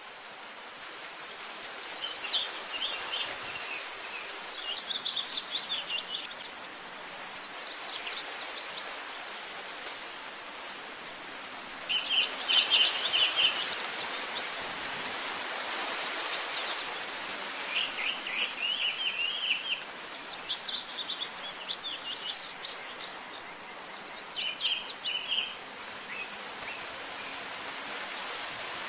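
Birds singing in short chirping, trilled phrases every few seconds, the loudest about twelve seconds in, over a steady background hiss of outdoor ambience.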